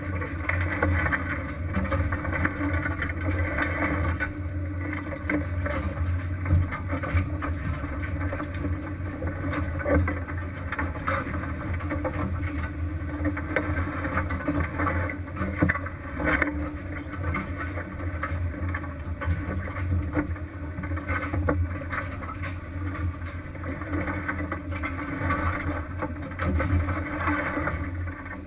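Fishing vessel's engine running with a steady low hum, under the rush of water and deck noise, with occasional sharp knocks.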